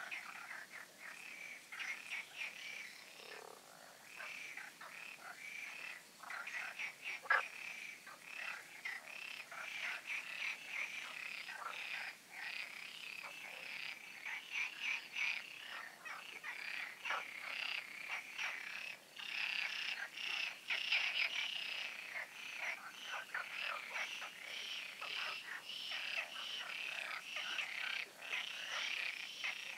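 Dense chorus of many frogs calling at once from ponds, a continuous overlapping run of short, rapid croaks that grows fuller in the second half.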